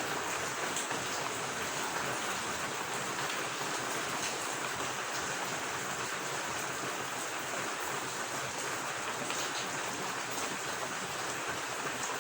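Steady rain falling alongside running water: an even, constant hiss with faint individual drop ticks.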